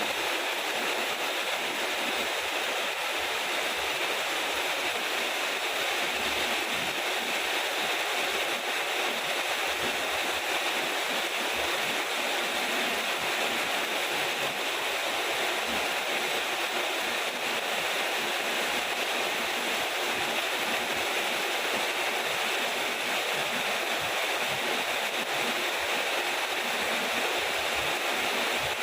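Steady, heavy rain pouring down in an even hiss, with no thunder.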